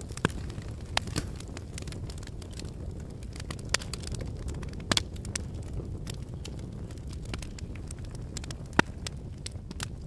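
Wood fire crackling in a fireplace: irregular sharp pops and snaps over a steady low rush of burning logs, with the loudest pop near the end.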